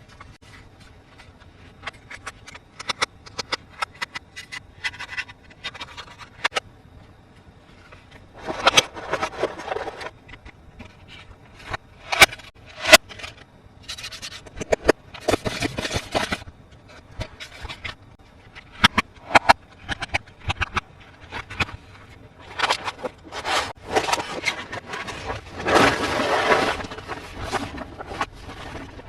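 Toys and their packaging being handled: a run of sharp plastic clicks and taps, broken by bursts of scraping and rustling about nine, fifteen and twenty-six seconds in. The two loudest clicks fall about twelve and thirteen seconds in.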